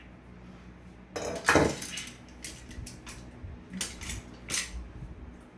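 Metal clinking and clattering of hand tools working a nut off a stud. A scraping burst comes about a second in, followed by several separate sharp clinks.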